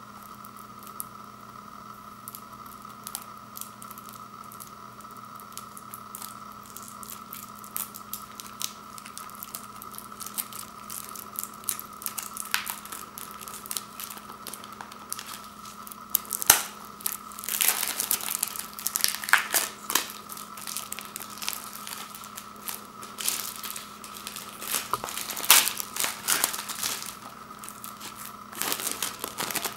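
Plastic shrink-wrap being picked open, torn and peeled off a Blu-ray case, crinkling and crackling in irregular bursts. The bursts are sparse at first and become busy and louder about halfway through. A steady hum runs underneath.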